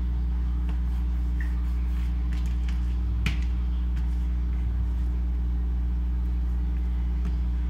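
A steady low electrical hum made of several pitches at once, with faint clicks of a small spoon against a plastic cutting board while pepper is spread over a raw fish fillet. One sharper click comes about three seconds in.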